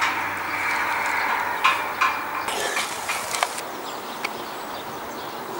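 Steady outdoor background noise with two short bird calls about two seconds in and a few faint clicks later.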